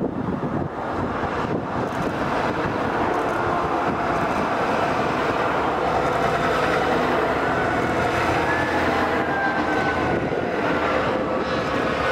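A convoy of heavy fire trucks driving by on a motorway: engines and tyre noise on the asphalt, growing gradually louder as the trucks approach.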